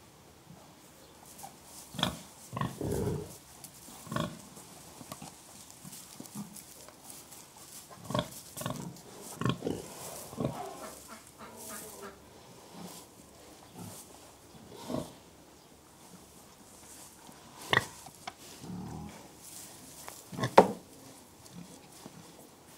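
Pigs grunting in short, separate grunts at irregular intervals, with quiet gaps between them; the two loudest grunts come a few seconds before the end.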